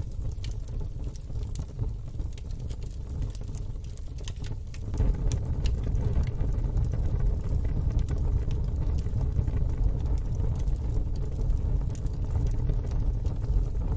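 Wood fire in a fire pit crackling, with scattered sharp pops and snaps over a steady low rumble. The rumble grows louder about five seconds in and stays up.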